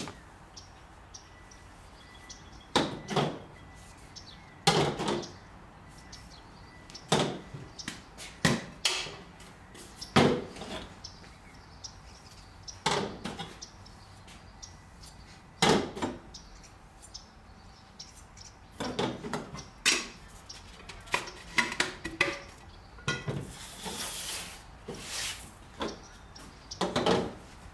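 Kitchen knives being handled and set down: scattered sharp clinks, clacks and knocks of metal on hard surfaces, with a run of lighter ticks in the second half and a couple of seconds of hissing noise near the end.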